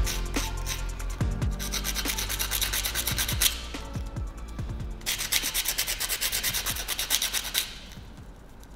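Rapid back-and-forth abrasive rubbing strokes, about five or six a second, in two runs with a pause of about a second and a half in the middle, fading out near the end.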